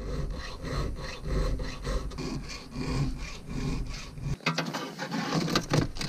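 Hand filing strokes on a workpiece clamped in a bench vise, a rhythmic rasping about twice a second.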